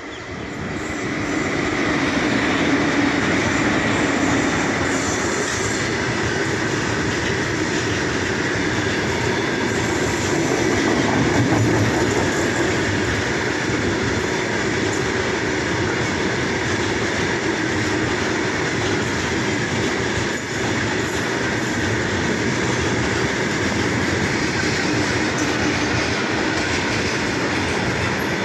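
A train passing close by: its wheel-and-rail noise builds over the first two seconds, then stays loud and steady as the cars keep going by.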